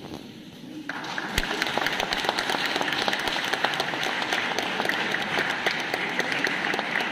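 Audience applause, starting suddenly about a second in and continuing steadily as a dense patter of many clapping hands.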